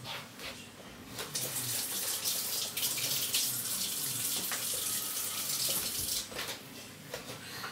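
Water running from a tap. It starts about a second in and stops about five seconds later.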